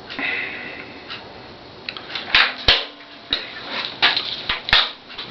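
Hand-handling noises at a stopped table saw: a brief scrape at the start, then several sharp clicks and knocks with short scrapes as the fence and small metal parts are adjusted by hand.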